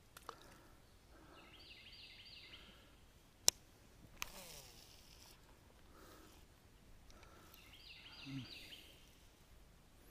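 A songbird sings the same short phrase of quick, high, stepped notes twice, a few seconds apart. Between the two phrases comes a sharp click, then a baitcasting reel's spool whirring on a cast, falling in pitch as it slows. A short low note sounds near the second phrase.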